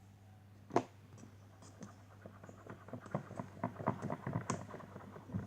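Glue slime being stirred in a bowl as the boric acid activator goes in: one sharp knock about a second in, then a fast run of small sticky clicks and scrapes that grows busier as the mixing goes on.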